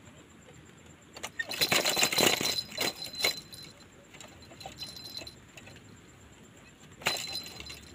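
Green quail trap cage rattling and clattering as a wild quail is caught inside it, a burst of about two seconds of cage and wing noise a second or so in, with a shorter rattle near the end.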